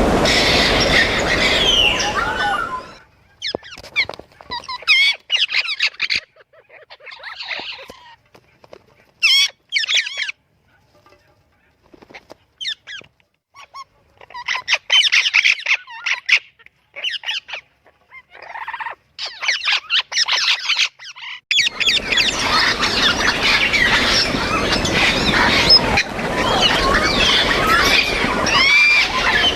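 Parrots calling with many gliding calls. A dense chorus thins after a few seconds to scattered single calls with short silences between them, and turns into a dense chorus again about two-thirds of the way through.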